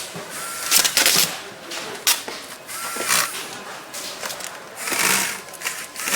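Powered screwdriver whirring in short runs as screws are driven into laptop parts, with two brief whines about half a second and three seconds in. Bursts of clatter and hiss from the assembly work come between them.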